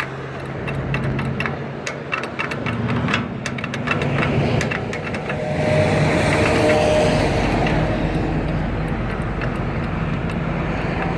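Road traffic running at an intersection, with a flurry of sharp clicks in the first few seconds from a crosswalk push button being pressed over and over.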